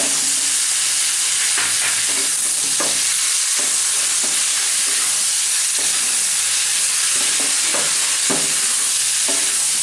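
Potatoes, onion, green chillies and tomato sizzling steadily in hot oil in a non-stick kadai, with a spatula scraping and stirring through them in irregular strokes as they are fried down together.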